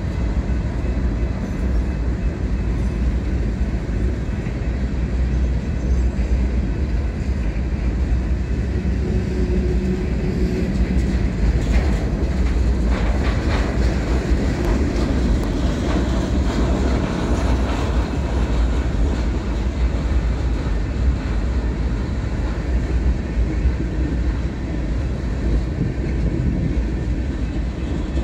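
Freight train cars rolling past close by: a steady heavy rumble of wheels on rail, with a spell of clanking and rattling about midway.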